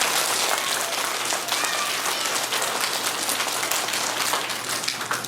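An audience of young schoolchildren applauding, many hands clapping together, and the clapping thins out toward the end.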